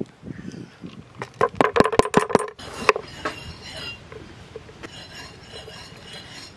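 Kitchen knife cutting a green capsicum on a wooden chopping board. About a second in there is a quick run of sharp, ringing clinks, then quieter scattered cutting clicks.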